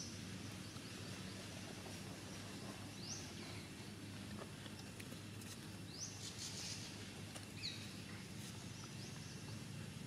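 Outdoor ambience with a steady low rumble. Over it come four short high chirps a few seconds apart, each rising quickly in pitch, from a bird or an infant macaque.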